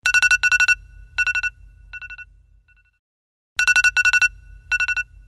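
iPhone ringtone: a rapid electronic trill in short bursts, each group repeated fainter and fainter like an echo. The ring starts again about three and a half seconds in.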